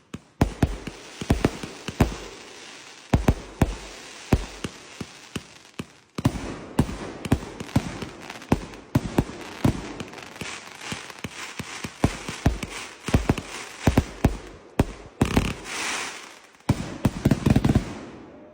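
Fireworks going off: a dense, irregular string of sharp bangs over a steady crackling hiss, with a louder hissing burst about three-quarters of the way through.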